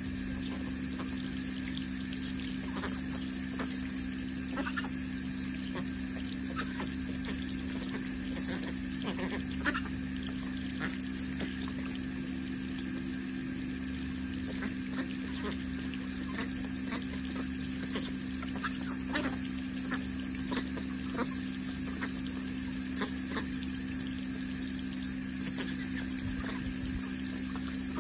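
Backyard chickens and ducks clucking and dabbling at a tub of water, many short sounds scattered throughout over the steady rush of water pouring from a garden hose onto gravel, with a steady low hum underneath.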